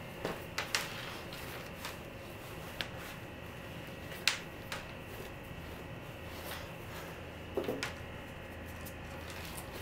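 Hands kneading soft bread dough on a floured countertop: scattered soft knocks and dull slaps as the dough is pressed and turned against the table, over a faint steady hum.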